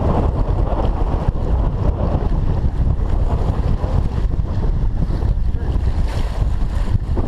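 Wind buffeting the microphone in a steady, heavy rumble, over choppy water washing against a fishing boat.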